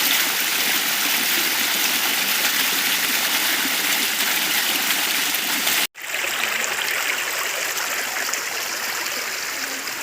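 Waterfall and stream water rushing, a steady loud wash of noise. It breaks off for an instant about six seconds in and comes back thinner and hissier.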